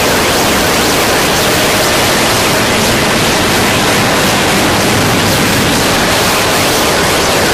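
Japanese harsh noise music: a loud, unbroken wall of static-like hiss spread evenly across all pitches, with no beat or melody.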